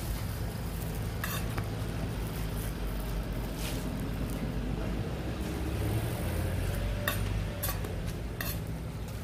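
Hotteok frying on a flat griddle with a faint sizzle, while a metal hotteok press knocks and clinks against the griddle plate about five times as the pancakes are pressed flat. A steady low hum runs underneath.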